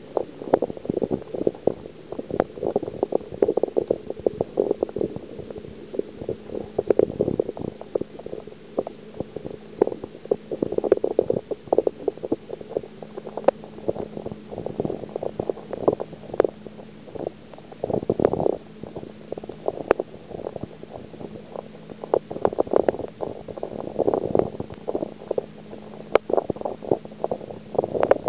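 Underwater sound in a garden pond heard through a submerged camera: a muffled, irregular gurgling and bubbling full of short clicks and taps, over a steady low hum.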